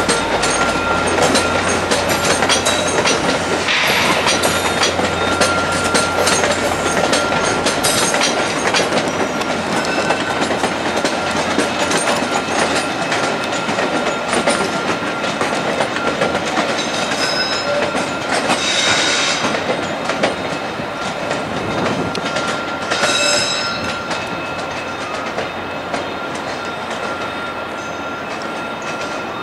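VIA Rail passenger train of LRC coaches rolling past at low speed, wheels clattering over rail joints and switches, with a few brief high wheel squeals. The sound slowly fades as the train moves away.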